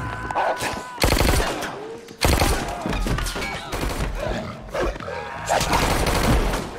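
Bursts of rapid gunfire in a film fight sound mix: one burst about a second in, another just after it, and a third near the end, with shorter scuffle noises between.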